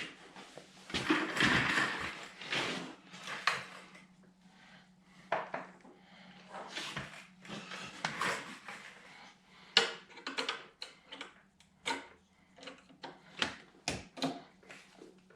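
Small metal hardware and hand tools clinking and rattling as a screw, washer and 8 mm nut are handled and fitted, with a denser stretch of rattling about a second in. A faint steady hum runs underneath.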